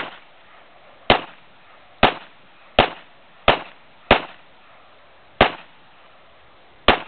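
Kimber Gold Match .45 ACP 1911 pistol firing a string of about eight single shots, roughly one a second with uneven gaps, as the magazine is emptied. Each shot is a sharp crack with a short tail.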